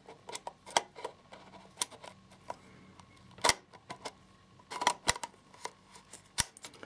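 A 50mm Summicron-R lens being twisted onto the Leica R6.2's metal bayonet mount: a series of sharp little clicks and taps as it is seated and turned, the loudest about halfway through.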